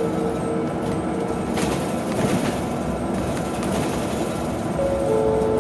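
Interior running noise of a BYD electric bus under way: a steady rumble of road and tyre noise with a faint whine.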